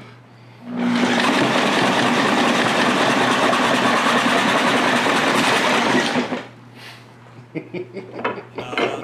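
A drill-powered homemade miter saw spins up and cuts through a piece of mahogany, a loud steady whir and rasp lasting about five seconds that stops suddenly. A few light knocks follow.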